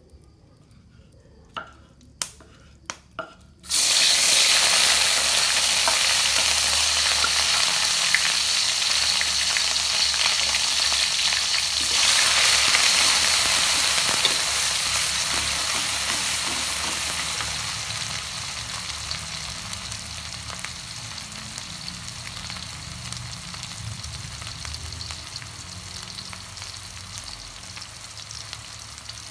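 A few short clicks, then a sudden loud sizzle about four seconds in as ingredients go into hot oil in a wok and are stirred with a spatula. The frying surges again about twelve seconds in, then slowly dies down.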